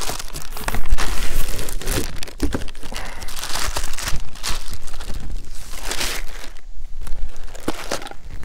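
Plastic packaging bag crinkling and rustling as a battery box is unpacked from it and from its cardboard box, in irregular bursts of handling noise.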